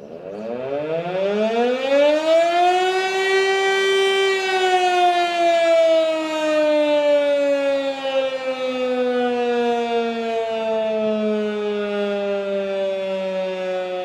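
E57 electric motor siren sounding for a routine siren test. Its wail rises in pitch as it spins up over about four seconds, then slowly falls as it winds down.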